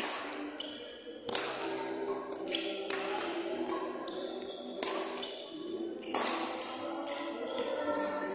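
Badminton rackets striking a shuttlecock back and forth in a rally: sharp hits about every second or so, each echoing in a large hall, over quiet background music.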